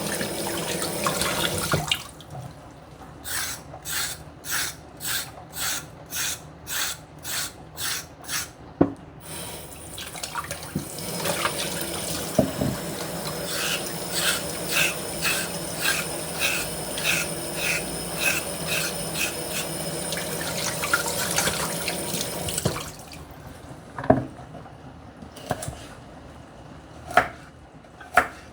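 Kitchen tap running into a sink, stopping after about two seconds. About a dozen even scraping strokes follow, roughly one and a half a second, as vegetables are prepared for soup. The tap then runs again for about thirteen seconds with more rhythmic strokes under it, then stops, and a few sharp knocks come near the end.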